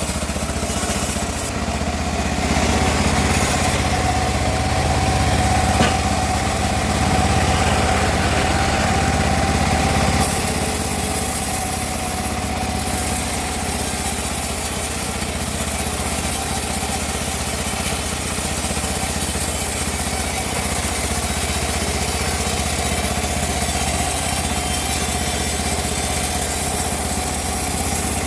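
Homemade band sawmill running and cutting through a teak log: a steady machine drone with a steady high whine, a little louder for the first several seconds.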